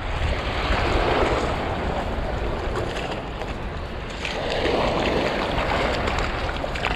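Small waves washing in over shallow water at the shoreline, surging twice, with wind buffeting the microphone throughout.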